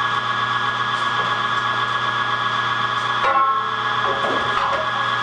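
Cabela's 1 hp electric meat grinder running with a steady motor hum while meat is fed through the auger for the second, finer grind. The sound shifts briefly a little over three seconds in.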